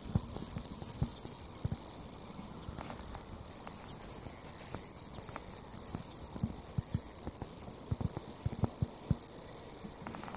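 Steady high buzzing of summer insects, with irregular soft knocks and rubbing from the rod and gloved hand moving close to the microphone as a fish is played on a spinning rod.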